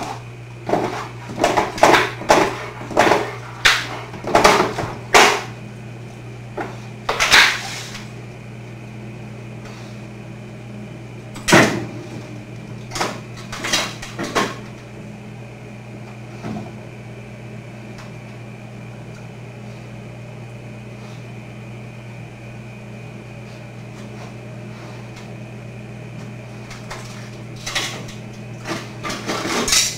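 A German shepherd working at a side-by-side refrigerator's freezer door until it swings open: a quick run of sharp knocks and clatters over the first eight seconds, a single loud knock, a few more soon after, and another cluster near the end. A steady low hum runs underneath.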